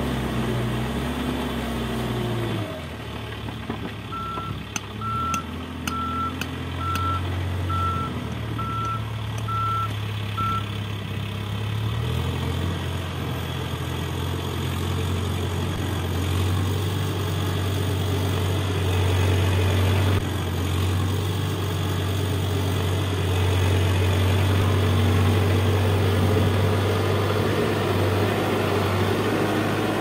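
Case backhoe loader's diesel engine running under work, its note shifting up and down, with the machine's reversing alarm beeping about once a second for several seconds soon after the start.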